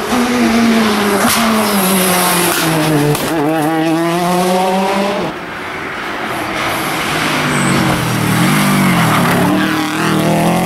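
Two rally cars pass at speed one after the other, engines revving hard with the pitch rising and falling through gear changes. The second, heard in the latter half, is a Subaru Impreza rally car.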